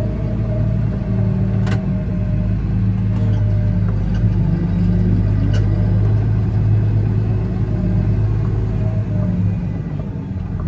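Massey Ferguson tractor's diesel engine running steadily, heard from inside the cab, with one sharp click just under two seconds in.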